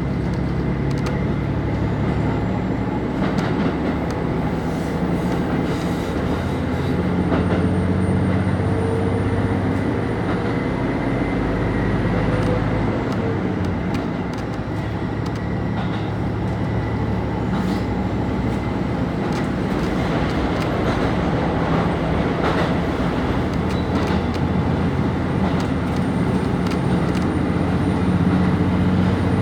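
KiHa 25 diesel railcar under way, heard from inside the car: a steady engine and running drone, with scattered sharp clicks from the wheels over rail joints. The pitch of the drone shifts a little about halfway through.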